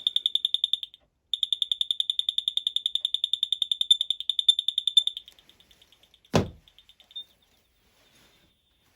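Firex FX1218 smoke alarm's horn sounding a high-pitched, very fast beep, about ten pulses a second, with a short break about a second in. After about five seconds the beeps weaken to faint chirps as the alarm discharges. A single thump comes about six seconds in.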